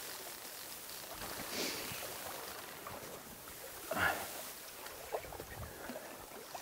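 Steady rush of a trout stream with a hooked brown trout splashing at the surface; the loudest splash comes about four seconds in, with smaller ones after.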